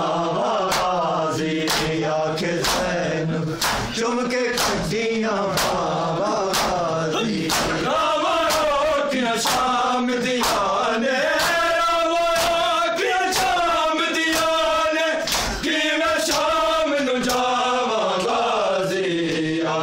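Men chanting a noha lament in Urdu/Punjabi, over the steady rhythmic slaps of open hands beating on bare chests (matam), one sharp slap on each beat.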